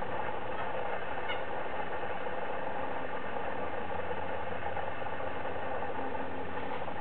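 Mantled howler monkey roaring, a steady rough drone with no breaks: a warning call at an intruder.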